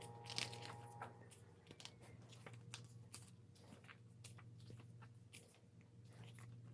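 Faint crackling and light ticks of glossy photo-book pages being handled, over a low steady hum.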